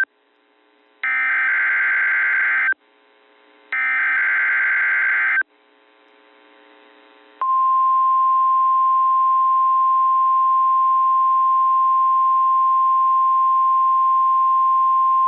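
NOAA Weather Radio test alert. First come two bursts of the SAME digital header data, each under two seconds with about a second between them. About two seconds after the second burst, the steady 1050 Hz warning alarm tone begins and holds unbroken.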